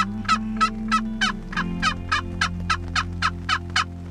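Turkey yelping: an even run of about fifteen short calls, three to four a second, stopping shortly before the end.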